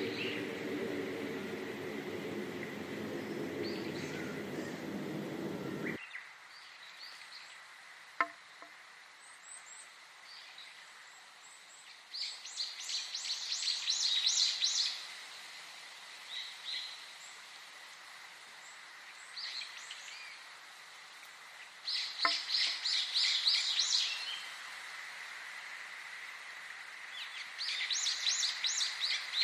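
Songbird song: a bird sings a fast trilled phrase of rapid high notes, about three seconds long, three times about ten seconds apart. A steady faint high tone runs underneath. For the first six seconds a louder, low rushing noise fills the sound and then cuts off abruptly.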